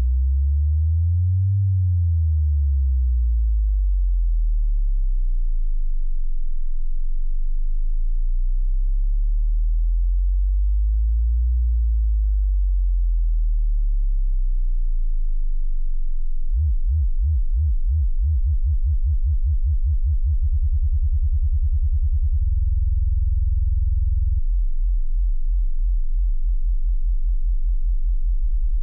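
Deep, pure bass tones that shift between a few low pitches, then turn into a rapid pulsing bass from a little past halfway: a low electronic bass line with nothing above it.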